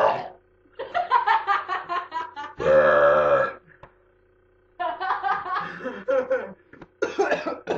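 A young man burping deliberately and loudly on request. The longest burp comes about three seconds in and lasts about a second, with choppier vocal noises before and after it. It sounds as if he were about to throw up.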